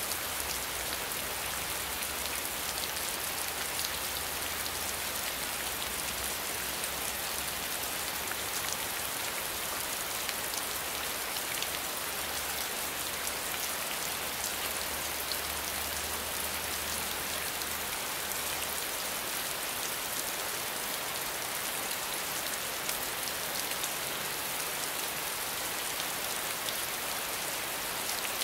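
Steady rainfall: an even hiss thick with the patter of individual drops.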